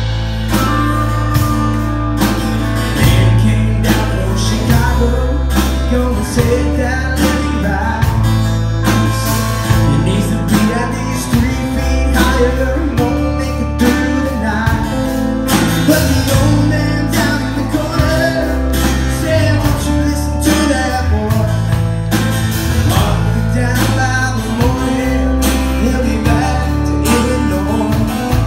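Live country band playing an instrumental passage: drums keeping a steady beat under bass, strummed acoustic guitar and electric guitars.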